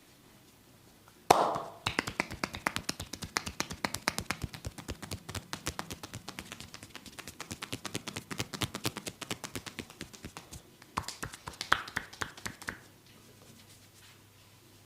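A barber's hands working a massage: one loud slap, then a fast run of sharp taps, several a second, for about nine seconds. A last short flurry of taps and snaps follows before it stops.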